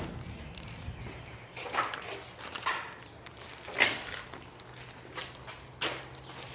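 A few separate sharp knocks and clicks, four or so spread over several seconds, over a faint steady hum.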